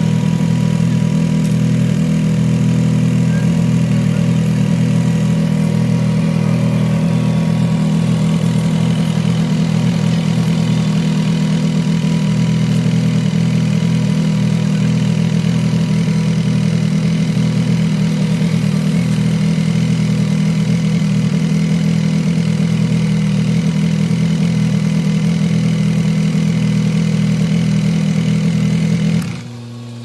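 Compact tractor engine running steadily under load while pulling a homemade crimper. The drone drops abruptly shortly before the end.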